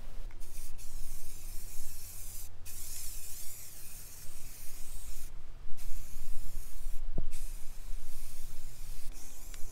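Aerosol spray paint can hissing as it is sprayed, in several bursts of one to three seconds with short breaks between them.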